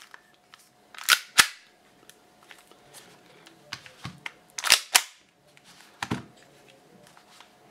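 Tokyo Marui Glock gas blowback airsoft pistols being worked by hand: two pairs of sharp plastic-and-metal clacks, one pair about a second in and one just before five seconds, each pair about a third of a second apart, then a lighter clack after six seconds.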